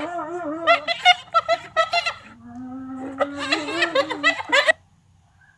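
Hyena laughing: two bouts of rapid, stuttering, high-pitched giggle calls. The second bout begins about two seconds in and stops suddenly near the end.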